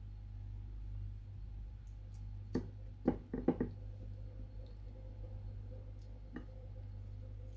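Light clicks and taps of fingers and chicken bones against a ceramic plate as boiled chicken is pulled off the bone: a quick run of several taps about three seconds in and one more near the end, over a steady low hum.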